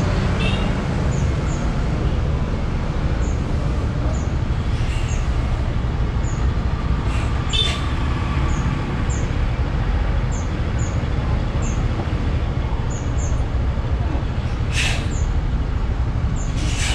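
Coach bus engine running with a steady low rumble as the bus creeps forward through a turn, with two short hisses of air, about halfway through and again near the end.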